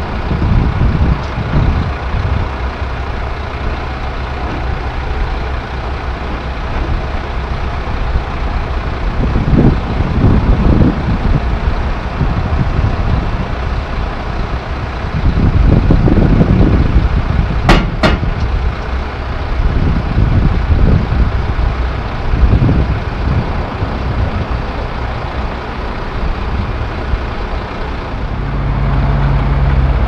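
Heavy diesel truck engine idling with a low rumble that swells and eases, and two sharp clicks about eighteen seconds in. Near the end a steadier engine hum takes over.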